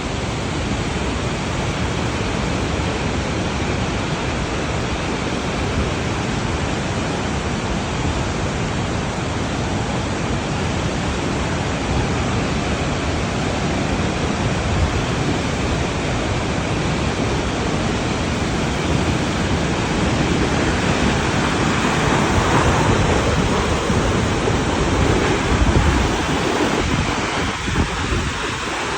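Alpine waterfall: a loud, steady rush of falling water, swelling somewhat about two-thirds of the way through.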